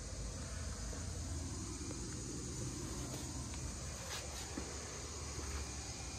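Quiet, steady background hiss with a low rumble and a few faint clicks; no distinct sound event.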